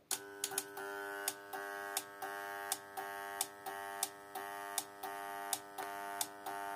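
Resanta SPN-600 relay-type voltage stabilizer buzzing steadily from its transformer, with its relays clicking over and over, about two to three times a second, as the hum dips and returns. It keeps going into protection with an error, a fault tied to a lightning-burnt circuit trace that controls the switching between the transformer windings.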